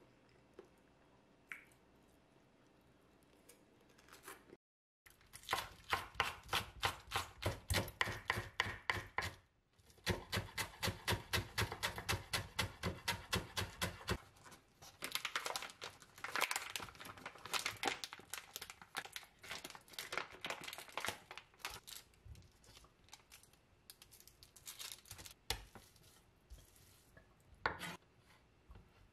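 Chef's knife chopping green onions on a wooden cutting board in a fast, even rhythm of several strokes a second, after a quiet opening few seconds. Later come slower, uneven cuts and knife presses on the board as imitation crab sticks are cut and crushed.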